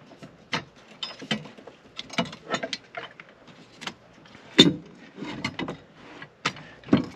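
Irregular clicks and clanks of hand tools and metal hardware being worked while removing a car battery's hold-down brace, with one louder knock about four and a half seconds in.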